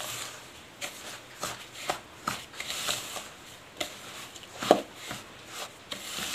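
Plastic spoon stirring semolina and curd in a plastic bowl: irregular gritty scrapes and scuffs against the bowl, a few a second, with one louder stroke a little before five seconds in.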